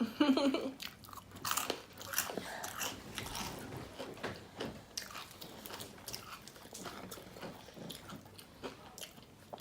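Close-miked eating: crunchy bites and chewing, with irregular crisp crackles throughout.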